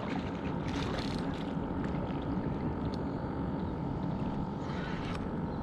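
Water lapping against an anchored stand-up paddleboard, with wind on the microphone. Two brief louder noises come about a second in and again near the end.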